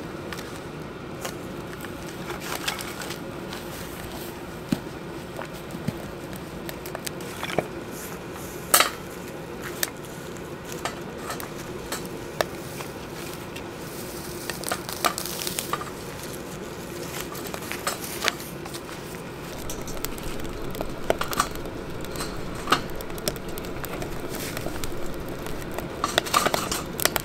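Wood fire crackling with irregular sharp pops in a small stainless steel wood-burning stove, with occasional clinks as split kindling is put in against the metal.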